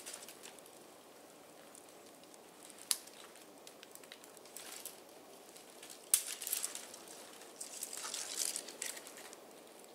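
Twigs and brush crackling and snapping as a person moves through snowy woods, with a sharp crack about three seconds in and a louder one about six seconds in, then a spell of crackling.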